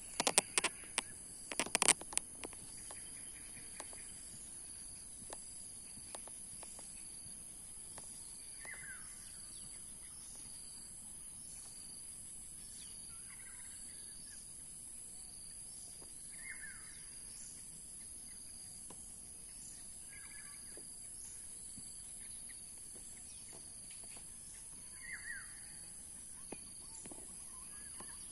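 Outdoor ambience: a steady high-pitched insect drone, with a bird giving a short call every four or five seconds. A cluster of sharp clicks and knocks in the first two seconds.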